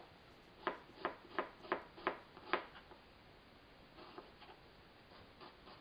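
Kitchen knife chopping onion on a plastic cutting board: a knock at the start, then six sharp knocks about three a second, then fainter, lighter taps from about four seconds in.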